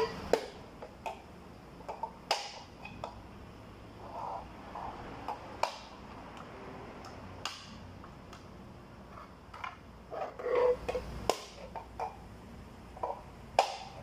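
Metal engine oil cans being punched open with a screwdriver: sharp metallic clicks and knocks every second or two, with duller scraping and handling sounds between them.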